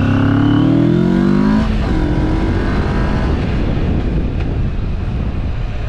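Motorcycle engine revving up as the bike pulls away, its pitch rising for the first second and a half or so, then running on steadily under rough wind noise on the microphone as it rides.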